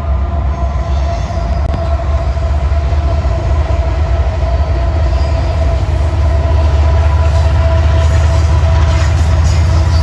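Diesel-electric freight locomotives (GE AC44C6M, EMD SD70ACe and GE ES44AC) passing close by, a heavy steady engine rumble with a constant tone above it.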